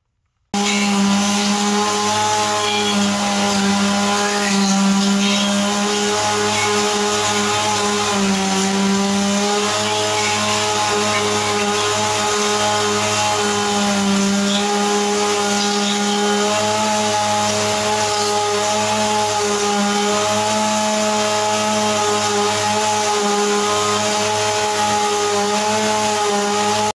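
Stihl MS 170 two-stroke chainsaw running at a steady high throttle, driving a belt-driven gouger attachment that digs out wood. The engine note holds nearly constant in pitch, starting abruptly about half a second in.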